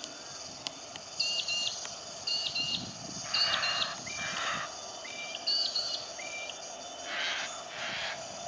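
Birds calling outdoors: a short chirping phrase repeated about four times, with a few harsher calls between, over a steady background hum.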